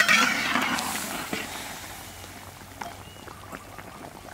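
Braising liquid with pork belly and eggs sizzling and steaming in a large wok: a loud hiss at the start fades over a second or two, leaving a soft steady simmer with occasional small pops.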